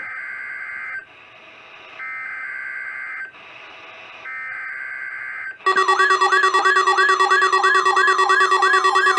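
Three roughly one-second bursts of the EAS digital header (SAME data tones) over NOAA Weather Radio, about a second apart. About five and a half seconds in, a loud warbling alert tone begins, sweeping up and down about four times a second.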